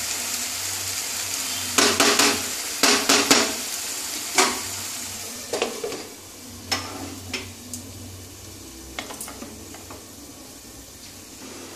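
Grated bottle gourd sizzling in a pan as a wooden spatula stirs it and knocks against the pan, with a cluster of sharp knocks a few seconds in. About halfway through, a glass lid is set on with a few clinks, and the sizzle turns to a fainter hiss under the lid.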